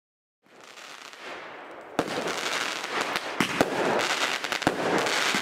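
Fireworks going off: a hiss fades in, then from about two seconds in comes dense crackling with several sharp bangs.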